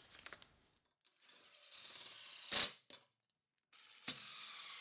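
A drill driving two 1.5-inch fine-thread pocket-hole screws into mahogany, one after the other. Each run is a steady motor whine that grows louder and ends in a short loud burst as the screw draws tight.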